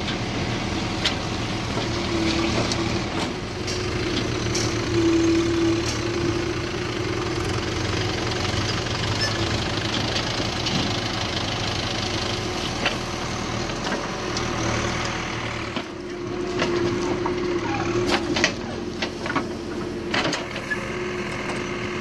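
Caterpillar 424B2 backhoe loader's diesel engine running under load while the backhoe arm swings and dumps soil, with a higher whine coming and going. Several sharp knocks and clatter in the last few seconds.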